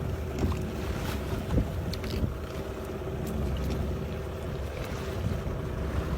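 Wind on the microphone and water moving around a small fishing boat at sea, over a steady low hum, with a few light knocks.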